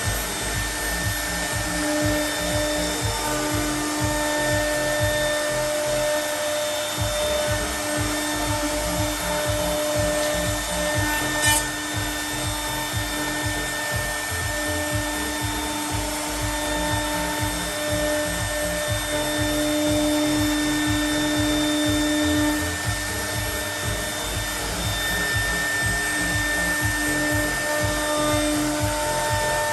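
CNC router spindle milling aluminium composite panel: a steady whine over the rasp of the cutter, the whine swelling and fading as the cut goes on. A single short tick about a third of the way in.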